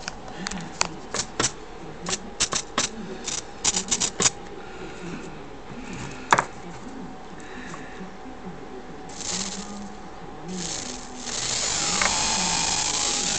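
Clicks and taps of small parts being handled, with one sharp click about six seconds in. Then the tiny motor of a miniature R/C gear unit runs in two short spurts and, for the last two seconds, steadily, whirring with its pitch sliding up and down: the unit is working.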